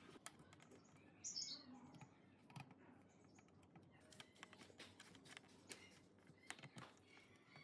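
Faint scattered clicks and light metal taps as a screwdriver works a screw on a spring dial weighing scale's painted steel bracket and fingers handle its dial housing, with a short scrape about a second in.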